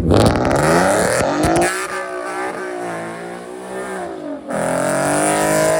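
Car engine revving hard, its pitch climbing and then rising and falling, with a hiss of tyre noise as when a car is drifting. The revs drop briefly about four seconds in, then climb again.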